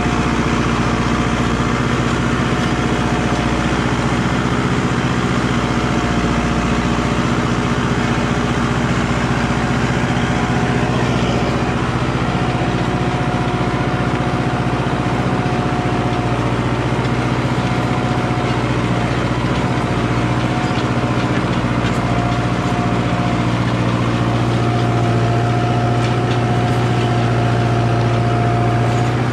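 Valtra BM110 tractor's diesel engine running steadily under load while pulling a disc harrow, with a steady high whine over the engine note.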